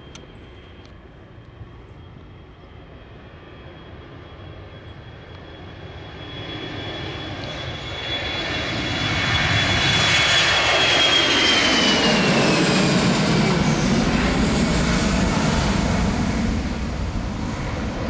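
Airbus A320's CFM International CFM56 turbofan engines at take-off thrust as the jet lifts off and passes. A high fan whine swells and then drops in pitch as it goes by, followed by a deep rumble that starts to fade near the end.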